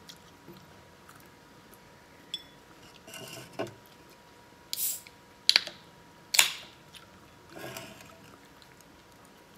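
Scattered clicks and knocks of tableware being handled during a meal: an aluminium beer can picked up and set down on a wooden table among bowls and plates, with two sharp knocks about five and a half and six and a half seconds in.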